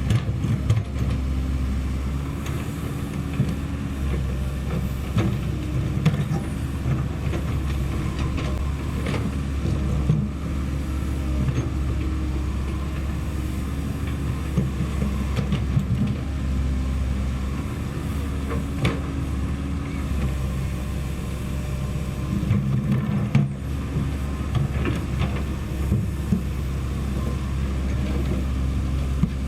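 Komatsu PC130F hydraulic excavator's diesel engine running steadily under work, its note stepping up and down every few seconds as the hydraulics take load, with scattered short knocks and clanks from the machine.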